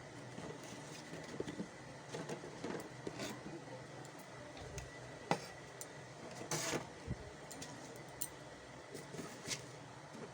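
Kitchen storage containers being handled and set down: scattered light clicks and knocks, a louder knock about five seconds in and another about six and a half seconds in.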